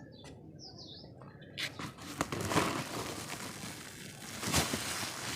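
Clumps of red dirt crunching and crumbling. It is quiet at first, then a run of gritty crunching starts about a second and a half in, with a few sharper cracks among it.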